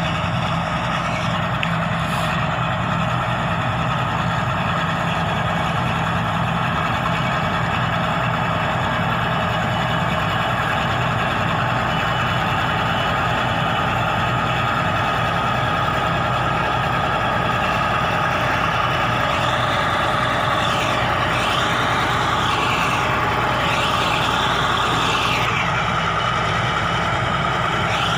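BEML BD80 crawler bulldozer's diesel engine running steadily under load as its blade pushes soil. Wavering high-pitched squeals sound over it for several seconds in the last third.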